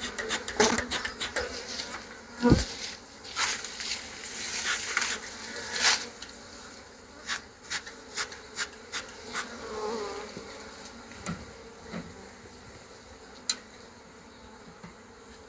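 Honeybees buzzing around an opened Langstroth hive, with a run of sharp clicks and knocks, densest and loudest in the first six seconds, including a heavy thump about two and a half seconds in.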